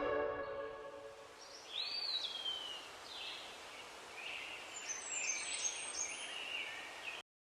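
The tail of background music fades out. Then come faint bird calls over a low hiss: a gliding call about two seconds in, and a run of short chirps later on. The sound cuts off abruptly near the end.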